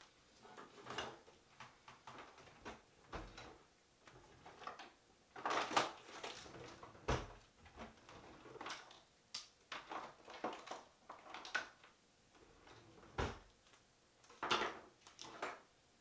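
Hair dryer, hairbrush and toiletries being picked up and set down on a bathroom vanity counter, with the vanity cabinet handled: irregular knocks, taps and clatters, the loudest about five and a half seconds in and again near the end.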